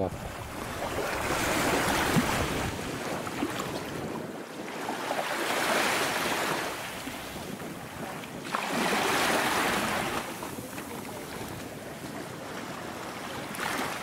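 Small sea waves washing up on a sandy beach, the surf swelling and easing back three times.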